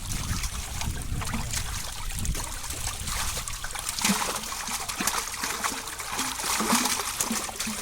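Pond water trickling and sloshing, with many small irregular splashes, as the water is stirred during net fishing.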